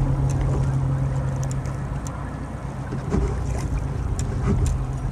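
A small fishing boat's motor running with a steady low hum that weakens about two seconds in, with scattered light ticks over it.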